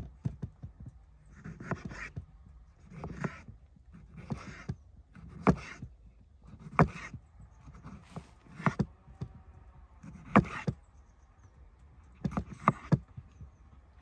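Kitchen knife slicing a tomato on a wooden cutting board: each cut ends in a sharp knock of the blade on the board, roughly every one to two seconds, with a soft scrape of the blade through the fruit before each knock.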